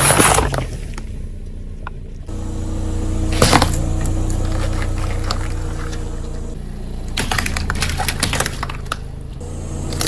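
A car tyre rolling over and crushing things, with the car's engine running steadily underneath. A loud burst at the start as plastic soda bottles split, a sharp crack about three and a half seconds in, and a run of crackling crunches later on.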